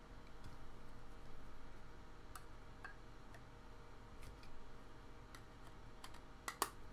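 Faint scattered clicks and taps of a plastic magnetic card holder being handled around a thick relic card, with two sharper clicks near the end as it snaps shut.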